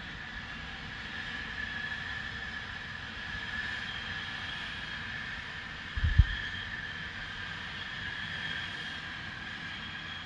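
Steady loud hissing from a factory, carried over a distance, with a steady whistling tone inside it and a low rumble beneath. A brief low thump about six seconds in.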